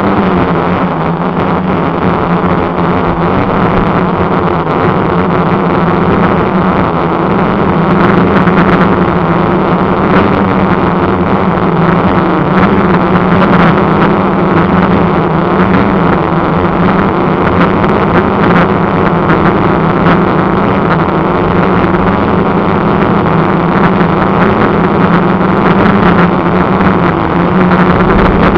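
Quadcopter electric motors and propellers running right beside the onboard camera's microphone: a loud, steady whirring drone with a constant low hum, its level wavering slightly but never stopping.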